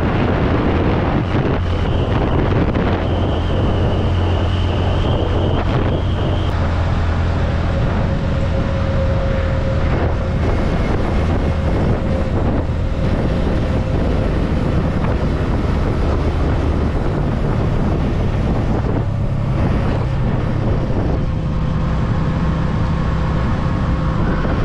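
Motorcycle engine running on the road with wind noise on the microphone, its note shifting a few times.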